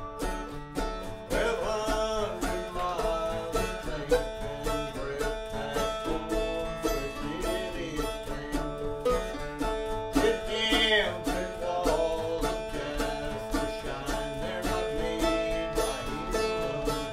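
A mandolin and an acoustic guitar playing a tune together, a steady stream of quickly plucked notes.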